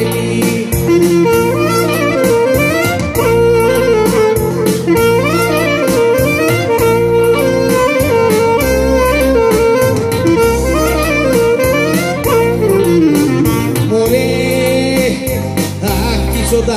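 Greek folk clarinet (klarino) playing an instrumental tsamiko melody full of quick ornaments and pitch glides, over keyboard and guitar accompaniment, amplified through a PA.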